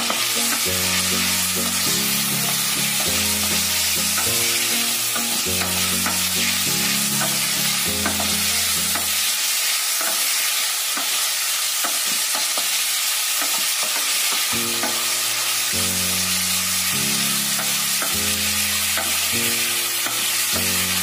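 Sliced raw onions sizzling steadily in hot oil in a nonstick kadhai, stirred with a spatula that scrapes and clicks against the pan; this is the start of frying the onions, still pale, toward light brown. A quiet background tune runs underneath and drops out for about five seconds in the middle.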